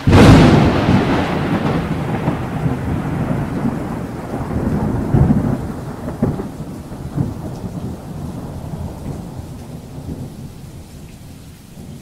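A loud clap of thunder over rain, rolling on in deep rumbles that slowly die away.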